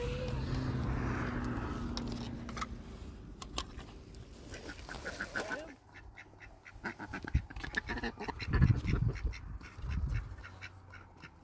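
Farm birds calling, with a run of sharp clicks and knocks through the second half.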